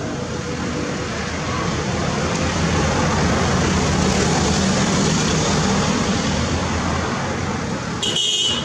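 Road traffic noise, with vehicle engine and tyre noise that swells and fades over several seconds. A brief high-pitched tone sounds near the end.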